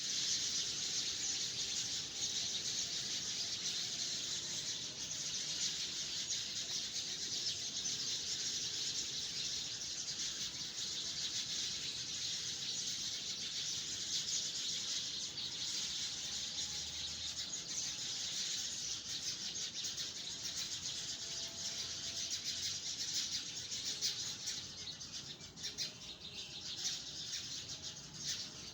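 Many birds chirping at once in trees, a dense, steady chorus of high-pitched calls, thinning a little near the end.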